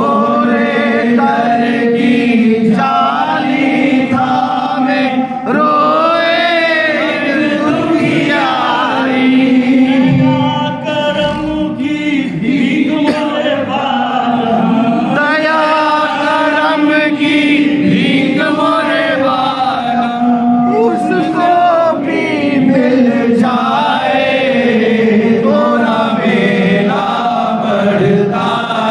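A group of men's voices chanting a Sufi devotional manqabat together, continuous and loud.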